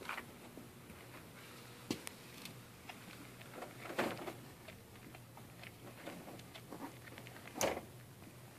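Cat chewing and crunching a gopher: faint, irregular wet clicks and crunches, with a few louder crunches about two, four and seven and a half seconds in.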